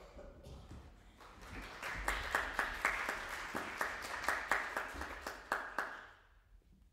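Small audience clapping, in separate claps rather than a dense roar, building about a second in and dying away near the end.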